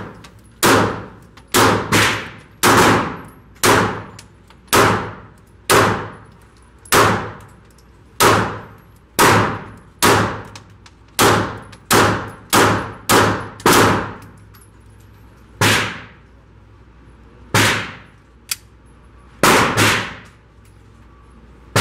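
Taurus G3 Tactical 9mm pistol being fired at an indoor range: about two dozen shots at an irregular pace of one to two a second, with a few longer pauses in the second half, each shot echoing off the range walls.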